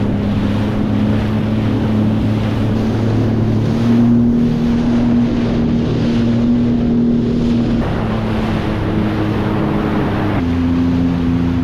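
Sea-Doo GTX 230 personal watercraft running at speed across choppy water, its engine note holding steady and then shifting in pitch with the throttle: up about four seconds in, down near eight seconds, up again near the end. Hull spray, water rush and wind buffeting on the microphone run underneath.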